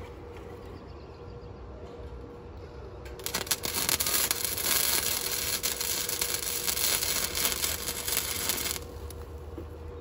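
Electric welding arc crackling and sputtering as a weld is laid, starting about three seconds in and cutting off sharply after about five and a half seconds, over a steady low hum.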